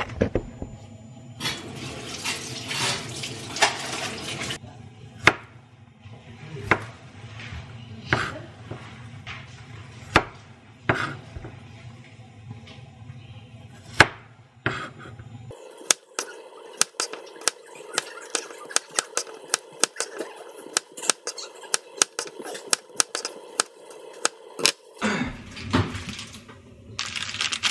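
Kitchen preparation sounds: a brief spell of running water near the start and scattered knocks of utensils and dishes. From about halfway through, a chef's knife chops garlic on a plastic cutting board in many quick, rapid strokes for around ten seconds.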